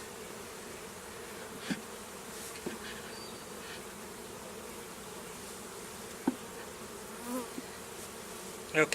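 A honeybee colony buzzing steadily in a steady hum around its opened hive, a colony stirred up by the hive being worked. A few light clicks of hive equipment, the sharpest about six seconds in.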